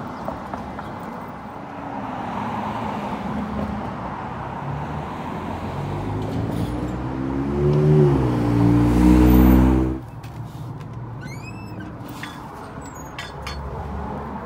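Street traffic: the hum of the road with a passing motor vehicle's engine growing louder and shifting in pitch, loudest just before it cuts off suddenly about ten seconds in. After that a much quieter room with a few light clicks and squeaks.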